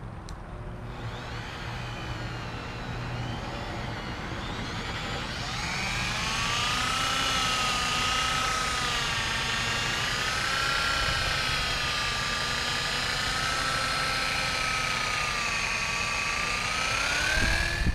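Drill Master 6-inch orbital polisher running with its pad on a carbon fiber hood: a steady motor whine that wavers in pitch as the pad is worked around, growing louder about five seconds in.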